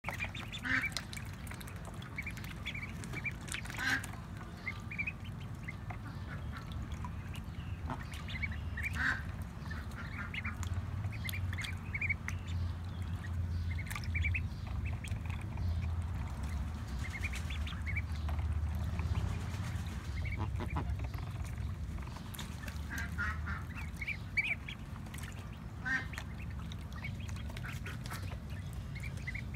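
Magpie ducklings peeping in short clusters of calls every few seconds while they dabble and splash in a tub of water, over a steady low rumble.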